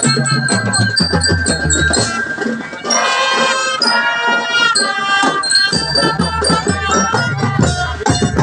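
Marching drum band playing a tune: massed reed melodicas and brass horns carry the melody over a steady beat of bass drums, with a brief dip in the music about two and a half seconds in.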